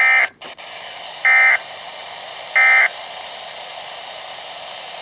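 Three short, identical bursts of SAME digital data tones from a Weatheradio Canada broadcast, played over a Midland WR-120 weather radio, about a second and a half apart. Steady radio static hiss follows them.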